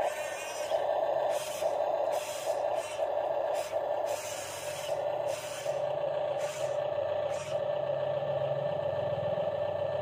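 Electric drive motors and gearboxes of Huina radio-controlled construction models whining as the models drive on their tracks over dirt. The whine comes in short stop-start spurts for the first half, then runs steadily.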